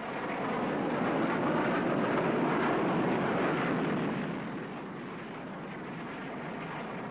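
Jet aircraft engine noise swelling as a jet passes close by, loudest from about one to four seconds in, then easing to a steady, lower noise.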